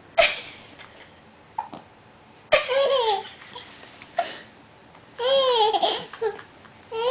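A baby laughing in high-pitched peals a couple of seconds apart, each peal falling in pitch, laughing at someone's hiccups. Short sharp sounds come between the peals.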